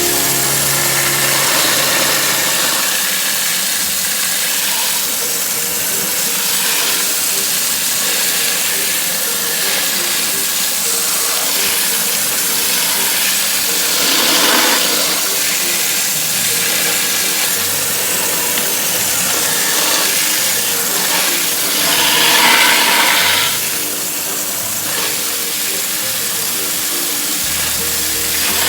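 A steady, loud hissing noise with soft background music underneath.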